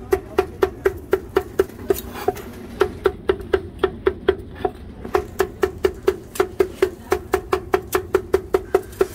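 Large knife chopping onions, tomatoes and green peppers on a wooden cutting board: a fast, even run of knocks, about four to five a second.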